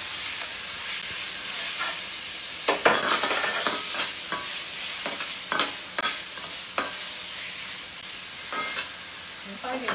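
Sea cucumber sizzling as it is stir-fried in a stainless steel wok, with a metal ladle scraping and knocking against the pan several times. The sizzle grows gradually quieter.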